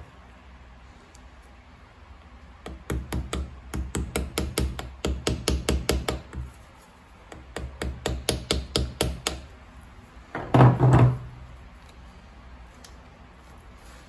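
Light hammer taps on a motorcycle crankshaft as its Woodruff key is worked loose. The taps come in two quick runs of about five a second, and a louder clunk follows near the end.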